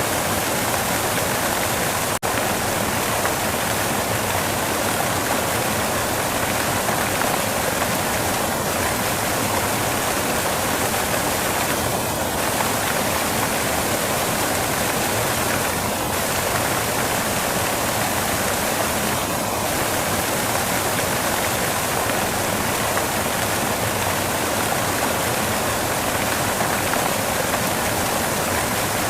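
Steady white noise, an even rushing hiss spread across the whole range. It briefly cuts out for an instant about two seconds in.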